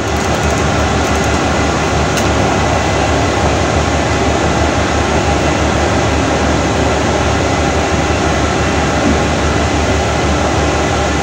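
Steady machinery drone of a ship heard on deck: an even rushing noise with a faint constant hum running through it.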